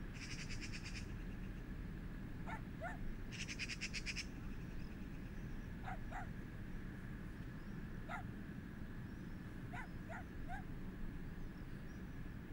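Faint, short animal calls, coming in twos and threes, over a steady low background rumble. Twice near the start a fast, high ticking trill lasts about a second.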